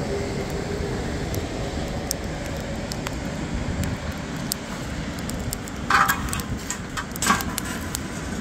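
Steady rush of ocean surf and wind. About six seconds in come a few sharp metallic clinks of a frying pan being set onto its place over the charcoal.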